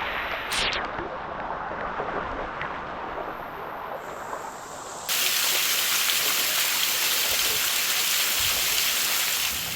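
Waterfall: a steady rush of falling water that becomes suddenly louder and more hissing about halfway through.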